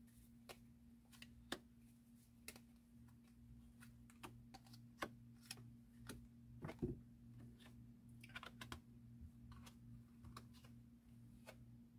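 Faint clicks and taps of small tarot/oracle cards being shuffled and then laid down one by one on a cloth-covered table, irregular and sparse, over a low steady hum.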